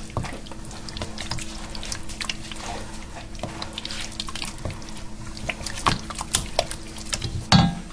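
A spoon stirring thick canned pumpkin purée and water in a stainless steel pot: wet squelching and slopping with many small clicks of the spoon against the pot, and a louder knock near the end. A steady low hum runs underneath.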